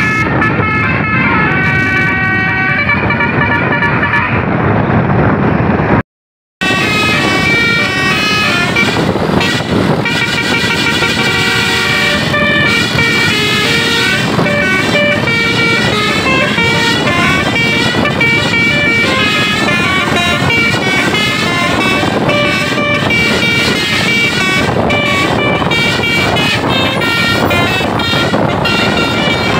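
Indonesian tour-bus 'telolet basuri' musical air horns playing melodies, several tones switching rapidly over the low rumble of the bus. The sound cuts out for about half a second some six seconds in, then the horn tunes carry on, busier than before.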